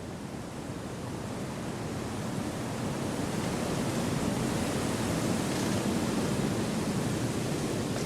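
Wind blowing through forest trees: a steady rushing that gradually grows louder over the first few seconds and then holds.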